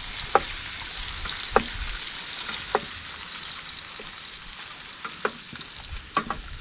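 Insect chorus: a steady, high, fast-pulsing buzz. A soft short tick sounds about once every second and a bit beneath it.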